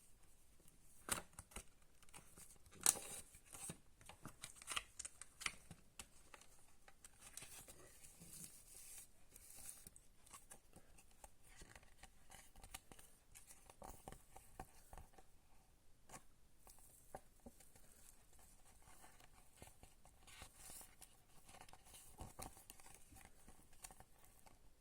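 A CD and its plastic packaging being handled and unwrapped, with rustling and tearing of thin plastic film and sporadic sharp clicks. The loudest clicks come about one and three seconds in.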